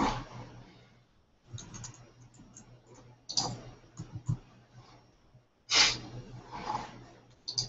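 Typing on a computer keyboard in short runs of key taps, separated by pauses, with a low hum that comes in under each run.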